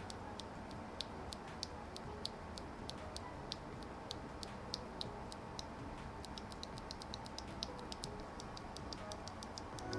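Faint, light plastic clicks of mechanical keyboard switches being handled or pressed, several a second at an uneven pace.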